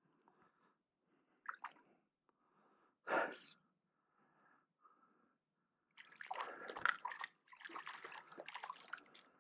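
Water splashing and dripping as a hooked rainbow trout is brought in and handled, busiest from about six seconds in. A single short, sharp burst about three seconds in.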